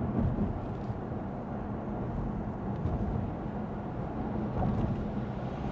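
Steady low road and tyre rumble with engine hum, heard inside the cabin of a Lexus ES 350 sedan as it drives along.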